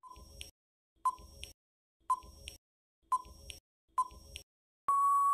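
Countdown timer sound effect: a short tick once a second, five times, each with a fainter click after it, then a long steady beep near the end marking time up.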